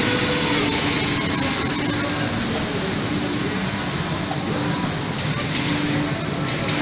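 Steady rushing hum of a CNC fabric cutter's vacuum hold-down system running, a little quieter by the end.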